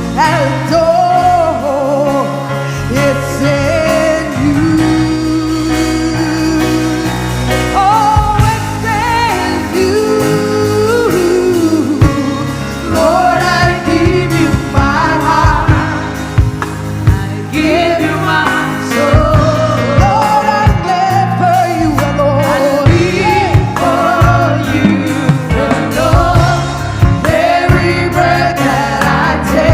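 Gospel worship song: a band with bass and drums playing under sung melody lines, with a choir joining in.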